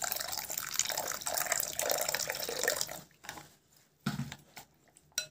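Water poured in a thin stream into a glass bowl of semolina and yogurt, splashing as a spoon stirs it; the pouring stops about three seconds in, leaving a few short stirring sounds and a sharp click of the spoon in the bowl.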